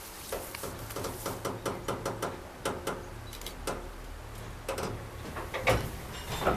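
Slow-moving train: a steady low rumble under a run of irregular clicks and clanks, a few each second, with the loudest knocks near the end.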